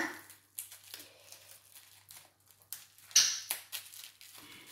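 Parcel packaging being handled and opened by hand: scattered small clicks and rustles, with a louder crinkling rip about three seconds in.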